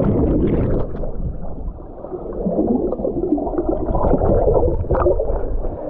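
Muffled gurgling and churning of water, heard as if from under the surface, as a person plunges down the waterfall's rock slide into the pool below.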